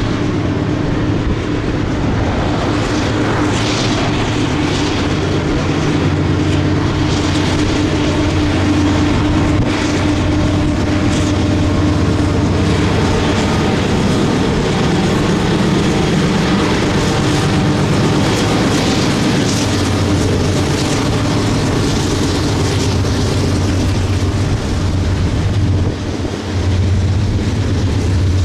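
Norfolk Southern diesel freight train rolling past: a steady low engine drone from the locomotives over the continuous noise of wheels on the rails.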